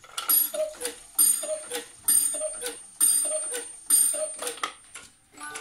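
Anton Schneider eight-day Black Forest cuckoo clock striking five o'clock: five falling two-note cuckoo calls, about one a second, each with a ringing strike. A music box starts to play just at the end.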